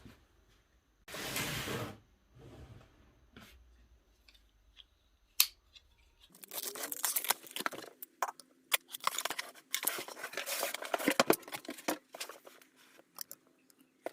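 Packaging being opened by hand, cut and torn, with irregular bursts of rasping and crinkling. There is a sharp click about five seconds in.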